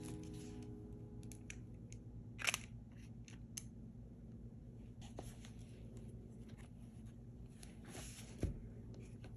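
Faint clicks and taps of a nib pen being handled at a desk, the sharpest about two and a half seconds in, then a brief rustle and a soft thump as a hardcover journal is closed near the end.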